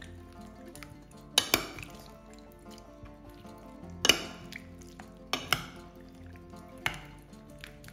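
Metal spoon clinking against a large bowl as tomato pulp is spread over chicken and vegetables: six sharp clinks, some in quick pairs, over steady background music.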